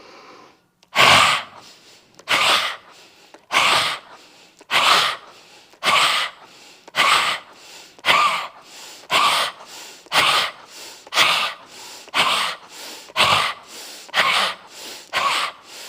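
A person's forceful, noisy exhalations pushed out by the belly in a yoga breathing exercise. There are about fourteen short, sharp puffs, roughly one a second.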